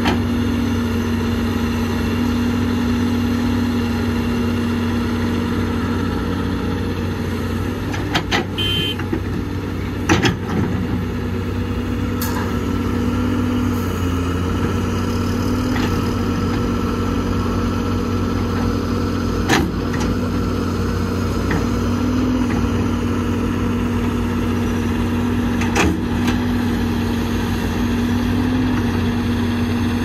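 Diesel engine of heavy earthmoving machinery running steadily, with a few short knocks and clanks scattered through it and a brief high squeal about eight seconds in.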